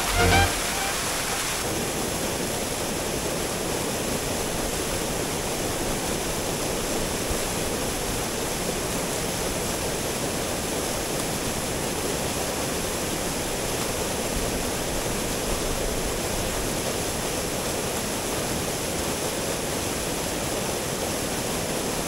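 Large waterfall rushing: a steady, even roar of falling water. Background music stops within the first second or so.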